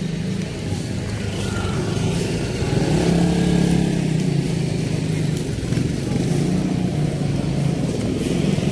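A vehicle engine running steadily nearby, a low drone that grows a little louder about three seconds in.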